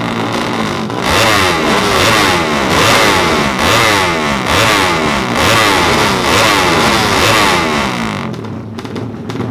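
Yamaha MX King drag bike's single-cylinder four-stroke engine on an open exhaust, free-revved in repeated sharp blips about once a second, the revs falling away after each one in a choppy beat that the uploader likens to a helicopter. About eight seconds in the revving eases to a few weaker blips.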